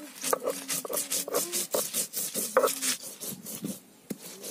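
Stone roller grinding dried red chillies, garlic and wet spice paste on a flat grinding stone (sil-batta): gritty stone-on-stone scraping in quick, even strokes, about four a second, easing off near the end.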